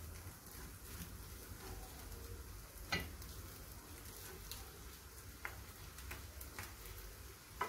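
Faint sizzling of noodles and vegetables stir-frying in a pan on a gas burner. Wooden utensils toss them, with occasional light clicks against the pan, the sharpest about three seconds in.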